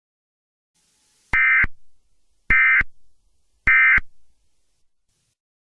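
Emergency Alert System SAME digital data bursts: three short, identical, buzzy bursts about a second apart. This is the end-of-message code that closes an EAS alert.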